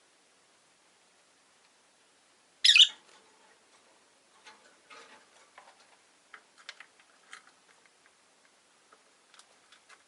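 Rosy-faced lovebirds: one short, loud, shrill call about two and a half seconds in, then scattered soft clicks, scratches and faint chirps from the birds in their cage.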